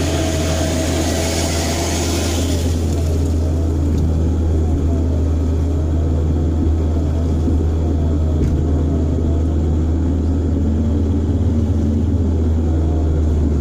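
Off-road vehicle engine running with a steady low drone, heard from inside the cabin, while another engine's note rises and falls as a 4x4 works through the mud ahead. A hiss fades out about three seconds in.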